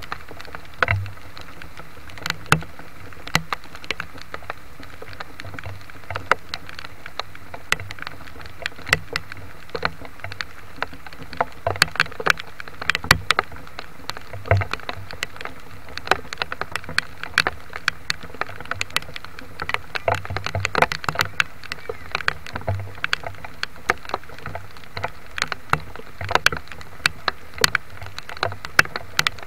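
Rain pattering: irregular sharp taps of drops striking a nearby surface, several a second, over a steady hiss.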